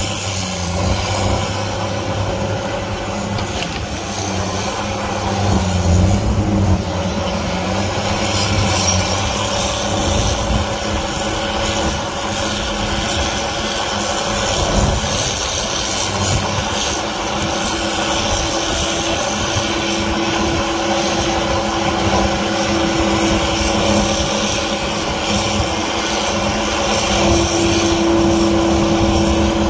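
Heavy equipment's diesel engine running steadily, with a tone that grows louder from about two-thirds of the way in.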